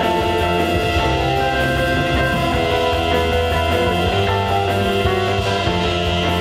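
A rock band playing: electric guitars and a drum kit, with a violin, in a steady, loud song with no break.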